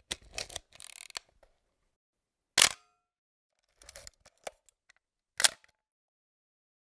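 Sharp clicks and knocks in irregular clusters: a quick run of small clicks, a single loud strike with a brief ringing tone, more scattered clicks, then a second loud strike.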